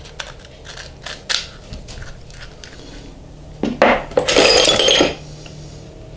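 Light clicks of iron pipe fittings being handled, then about three and a half seconds in, loud clinking and rattling of loose metal pipe fittings as a hand rummages through a metal box of them.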